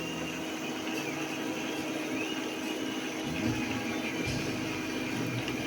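Epson L3150 inkjet printer running its ink-charge cycle: a steady mechanical whir from its maintenance pump drawing ink through the print head, with the low pitch shifting in steps.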